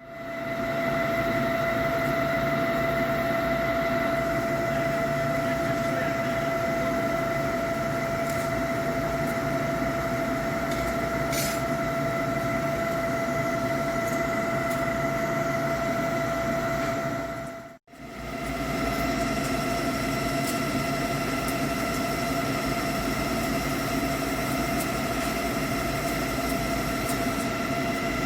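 Heavy Hankook PROTEC-9NC CNC lathe running steadily while turning a steel pinion shaft: a constant gear whine over a steady hiss of machine noise. The sound cuts out for a moment about 18 seconds in and comes straight back.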